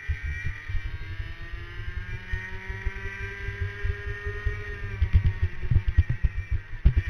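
Racing kart engine heard onboard, its note climbing steadily as the kart accelerates down a straight, then levelling off and falling from about five seconds in as it eases for a corner. Heavy low thumping and buffeting on the microphone grows stronger in the second half.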